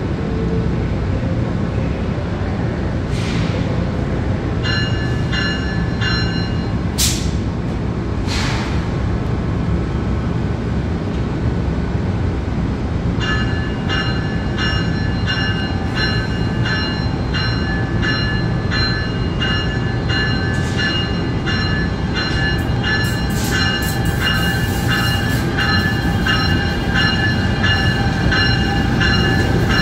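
Bombardier ALP45DP locomotive standing at the platform with a steady low rumble, with a few short hisses of air. Its bell rings briefly, then rings continuously from about halfway through at about three strikes every two seconds as the train prepares to depart.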